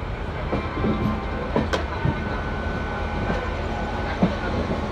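Passenger train coach rolling slowly over the tracks, heard through an open doorway: a steady low rumble with irregular clacks and knocks of the wheels over rail joints, the sharpest one near the end, and a faint thin whine for a couple of seconds in the middle.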